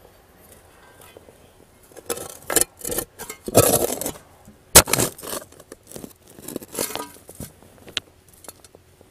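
A shovel blade digging into mossy soil threaded with roots: a run of irregular scraping, tearing strokes beginning about two seconds in, with one sharp knock near the middle.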